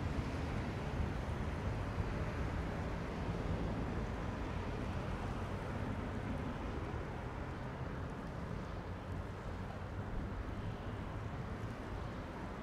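Distant helicopter in flight: a steady low drone of rotor and engine mixed with wind noise, easing off a little toward the end.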